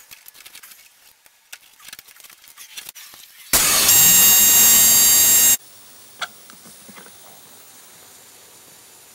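A few light clicks of handling the fittings, then about three and a half seconds in, compressed air hisses loudly into a bead-seater tank made from a propane cylinder through its air-hose fitting for about two seconds and cuts off sharply. A faint steady hiss follows.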